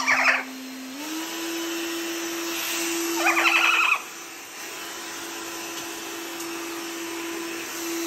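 Hand-held hairdryer blowing steadily, its hum stepping up slightly in pitch about a second in. Over it a green-winged macaw gives a short call at the start and a louder, longer call about three seconds in.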